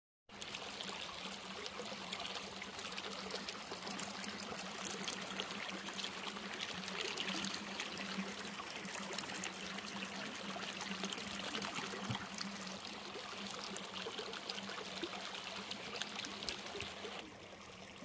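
Shallow mountain stream trickling and splashing steadily, a dense patter of small water sounds; it turns quieter shortly before the end.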